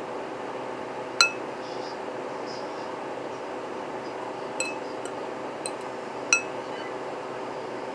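Metal fork clinking against a ceramic bowl as it stirs soaking meatloaf pieces: three sharp ringing clinks, about a second in, near the middle and near the end, plus one lighter tap. A steady hum runs underneath.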